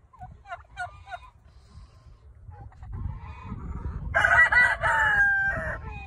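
A rooster crows once, the loudest sound, starting about four seconds in and lasting about a second and a half with a falling end. Before it come a few short high calls from the chickens.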